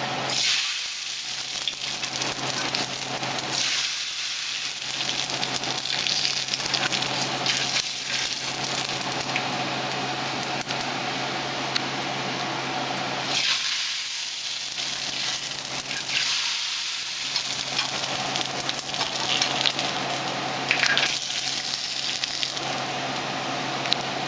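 Dry mung bean noodles sizzling in hot oil in a frying pan as they puff up, surging several times as fresh handfuls go in and settling back to a steady sizzle between them.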